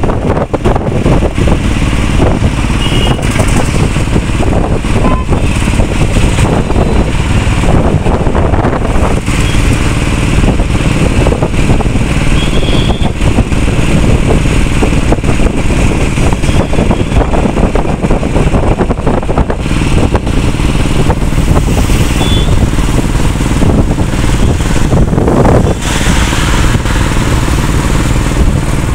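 Steady engine and road noise of a moving vehicle, heard from on board, loud.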